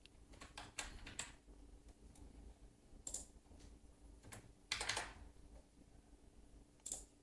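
Faint computer keyboard keystrokes: a few scattered taps, with a short burst of several keys about five seconds in.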